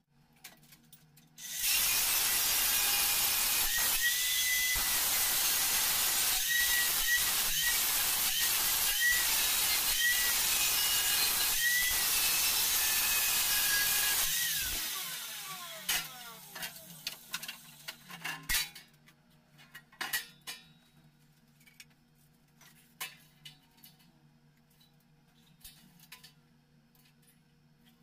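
Angle grinder with a cutting disc slicing through sheet steel, running steadily for about thirteen seconds, then winding down with a falling whine. Afterwards a series of sharp metallic knocks and clanks.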